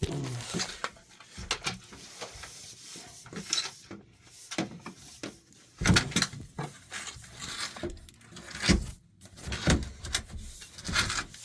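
A long pipe being pushed through a hole, scraping and rubbing against wood with irregular knocks, a few of them louder.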